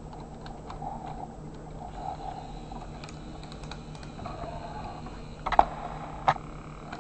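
Small battery motor and plastic gears of a Hess toy front-end loader running as it drives itself along, with rapid clicking. Near the end there are two loud knocks about a second apart as the loader runs up onto the trailer's ramp.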